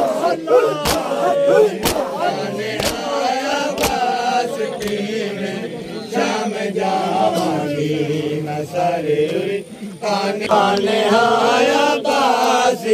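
Crowd of men chanting a noha together. Sharp slaps come about once a second for the first four seconds: hands striking chests in matam.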